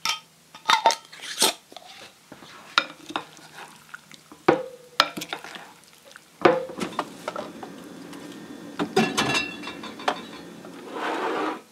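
Wooden spoon mixing chopped fruit and vegetables in a glass bowl: a run of sharp knocks and clinks against the glass, with stirring noise in between. A short steady swell of noise comes near the end.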